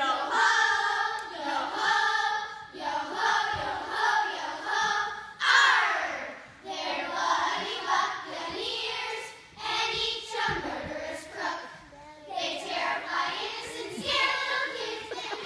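A group of young voices singing a song together.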